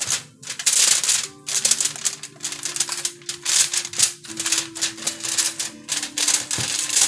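Aluminum foil crinkling and crackling in quick, irregular bursts as hands press and crimp it down over the edges of a baking pan to seal it.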